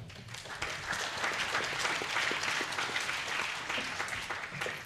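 Audience applauding, swelling over the first second and fading out at the end.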